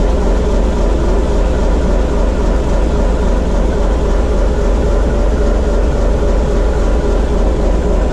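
TEM2 shunting locomotive's diesel engine running steadily at the fourth controller position, loaded to about 300 kW into a water rheostat during its run-in after a major overhaul, heard inside the cab.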